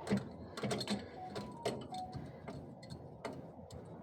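Irregular light clicks and taps of small parts being handled as a truck air valve is taken apart, several a second at times, with no steady machine sound.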